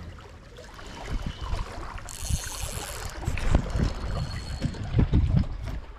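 Wind buffeting the microphone in gusts, over sea water washing against a jetty. About two seconds in there is a short burst of hiss lasting roughly a second.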